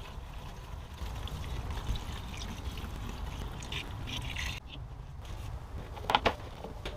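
Coolant pouring from a jug into a plastic funnel in the cooling system's filler neck, a steady trickle of liquid that stops suddenly a little past halfway. Near the end come a couple of sharp knocks.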